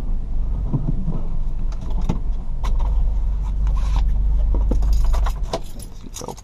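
A Nissan car's engine running as the car is slowly parked, heard inside the cabin, with scattered clicks and knocks from the controls. The engine rumble stops about five and a half seconds in as it is switched off.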